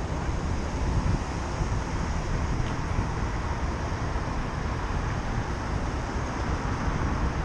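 Wind buffeting the microphone of a camera on a moving bicycle: a steady, gusty low rumble with a hiss of street noise behind it.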